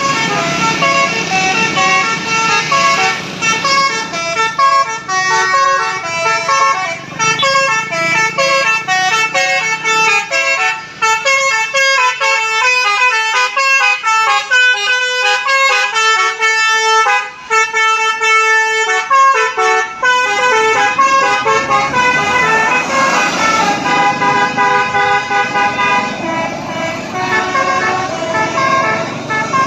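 A bus's musical 'telolet Basuri' multi-tone air horn playing a quick melody of short stepped notes, tune after tune, with bus engine and road noise underneath that grows heavier in the last third.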